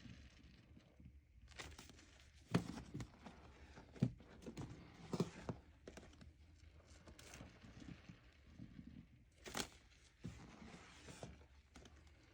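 A wet, soapy sponge being squeezed and worked by hand: irregular squelches and crackles of foam, with a few sharper louder squeezes spread through.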